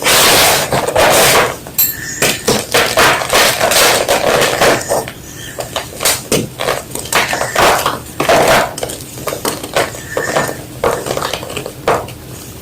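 Block of white gym chalk being crunched and crumbled: a dense run of crisp cracks for the first couple of seconds, then many quick separate snaps throughout.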